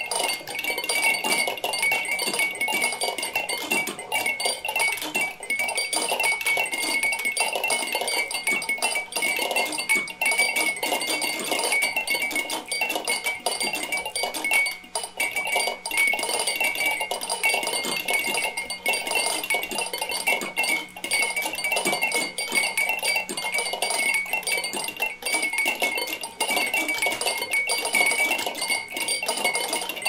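Hundreds of glass drinking-bird toys bobbing and dipping together: a dense, continuous patter of small clicks and glassy clinks, over a steady high ringing.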